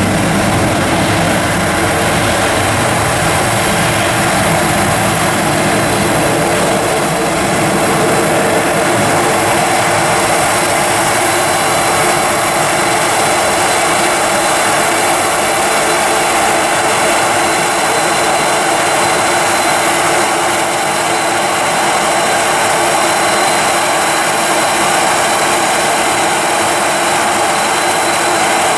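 Airliner jet engines running steadily, a continuous rushing noise with a thin steady whine. An Airbus A320-family jet is on its takeoff roll and a Boeing 737 is on the taxiway close by.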